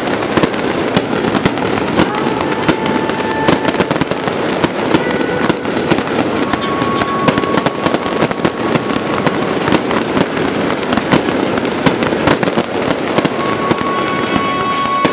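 Fireworks display: aerial shells bursting in a dense, rapid run of bangs and crackles, many each second.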